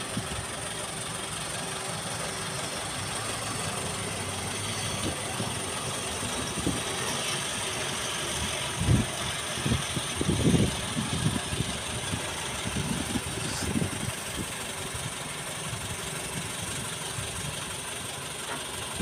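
Tata transit mixer truck's diesel engine running steadily while the mixer drum turns, with a few low thumps about halfway through.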